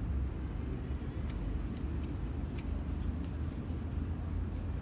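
Low, steady rumble of a motor yacht's MTU diesel engines as it moves slowly along, with a few faint ticks above it.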